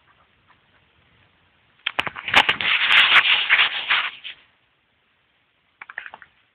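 Loud rubbing and rustling close to the microphone for about two and a half seconds, with a few sharp clicks, then a shorter burst of the same near the end.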